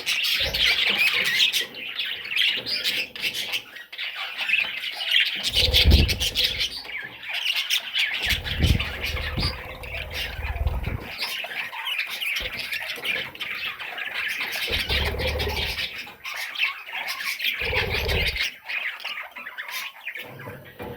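Baby budgerigars squawking and chirping continuously, with a few low rumbling bumps mixed in.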